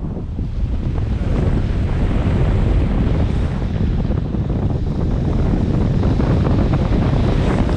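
Loud, gusting wind rush buffeting the microphone of a pole-held action camera on a tandem paraglider, airflow from the wing's aerobatic turning.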